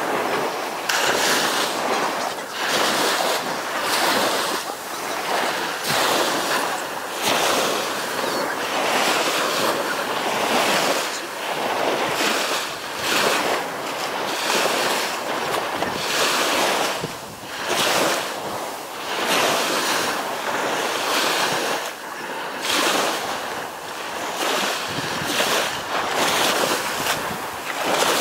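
Small waves washing up a sandy beach and running back: a steady hiss of surf that swells and eases every second or two, with wind on the microphone.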